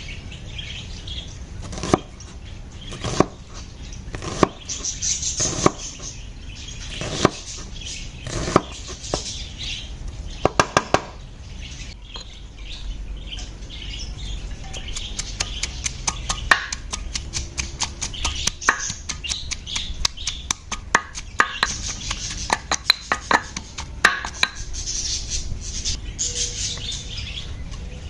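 A cleaver knocks on a wooden cutting board as it slices a red onion, one stroke a little over every second. About halfway through, a pestle starts pounding onion slices in a stone mortar with rapid taps, several a second. Birds chirp in the background throughout.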